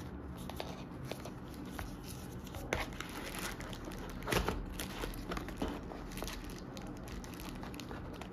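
Thin plastic wrap crinkling as hands handle it and pull it off a handheld gimbal in its box: irregular crackles, loudest about 3 and 4.5 seconds in.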